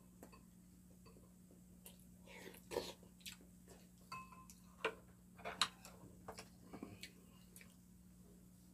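Quiet eating sounds: chopsticks and a spoon clicking against ceramic bowls, with chewing. The sharp clicks cluster between about two and seven seconds in.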